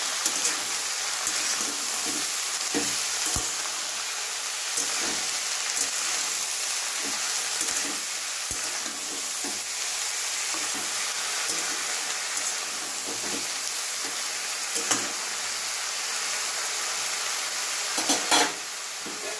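Sliced ridge gourd, potato and chickpeas sizzling steadily in hot oil in an aluminium kadhai while a metal spatula stirs them, scraping and tapping against the pan now and then. There is a louder clatter of the spatula on the pan near the end.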